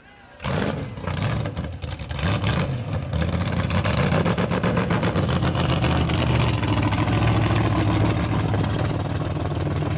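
Drag-racing Chevy Nova's engine running at low revs, loud and steady with an even, choppy beat; it comes in suddenly about half a second in.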